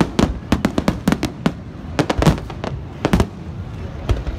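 Fireworks display: aerial shells bursting overhead in a rapid, irregular string of sharp bangs, some in quick clusters, with the heaviest bang a little over two seconds in.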